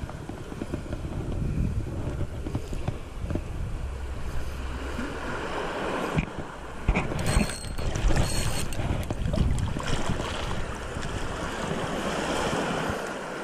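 Wind buffeting the camera microphone with a low rumble, over the wash of surf, with scattered knocks from the hands on the rod and reel.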